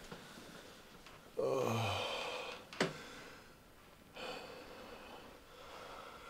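A man sighing heavily: a low voiced breath out that falls in pitch about a second in, then a softer breath out about four seconds in, with a single sharp click between them.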